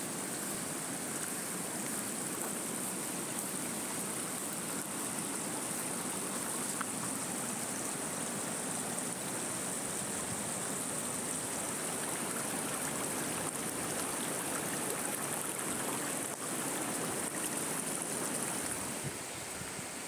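Small forest stream running with a steady, even rush of water.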